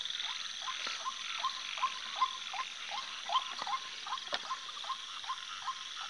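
Frogs croaking in a night chorus: short calls repeating about two to three times a second over a steady high trill. A single sharp click about four seconds in.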